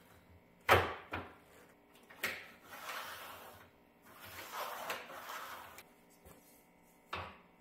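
Galvanized sheet metal and a steel rule being handled on a workbench: a sharp knock, two longer scraping, rustling stretches as the metal and rule are moved, and another sharp knock near the end.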